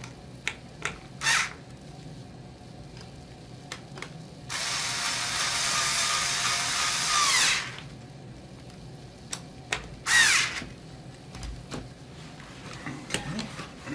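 Cordless electric screwdriver driving a screw for about three seconds, falling in pitch as it stops, then a second short run about ten seconds in. Light clicks of screws and tools being handled around it.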